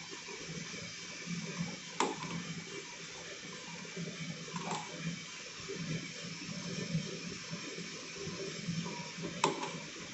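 Coffee roasting machine running: a steady rushing noise over an uneven low hum, with three sharp clicks.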